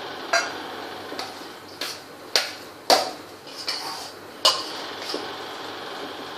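Stainless steel spoon, cup and bowl clinking: about eight sharp, uneven metallic clinks in the first five seconds while curd is scraped into rice and mixed.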